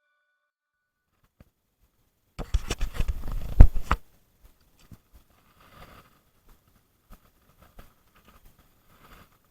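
A burst of knocks and rustling lasting about a second and a half, starting a couple of seconds in, followed by faint scattered clicks.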